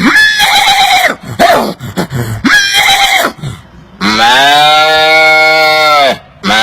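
A man imitating livestock calls with his voice: several short calls over the first few seconds, then a long, steady call of about two seconds that drops in pitch as it ends, and another long call starting near the end.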